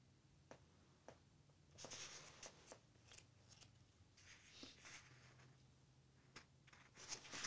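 Faint rustling and soft clicks of paper handling, as when the pages of a book are turned, in a few short bouts over a low steady hum.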